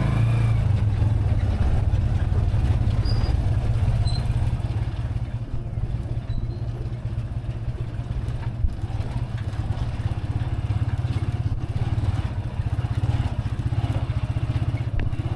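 Motorcycle engine running steadily while riding, a constant low drone.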